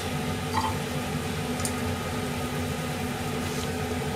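Steady low whirring hum of kitchen machinery, with a couple of faint light clicks.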